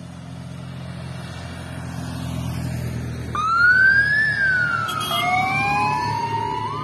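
Police motorcycles approaching: their engines hum louder and louder, then about three seconds in a siren starts wailing, rising and falling in pitch, and a second siren joins about two seconds later, the two overlapping.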